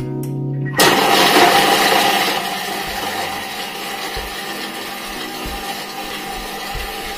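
Thermomix TM6 food processor blending a mayonnaise, ketchup and chopped-pickle sauce at speed 5. A brief low hum comes first, then about a second in the blade motor cuts in suddenly and loudly. It runs steadily after the first couple of seconds.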